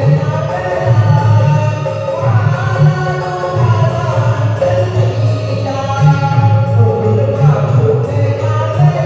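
Hindu devotional singing: a Hanuman bhajan, with sung lines rising and falling over a steady low accompaniment.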